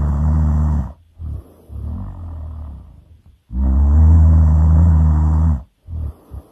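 A person snoring loudly: two long, low, rasping snores about three and a half seconds apart, with softer breathing sounds between them.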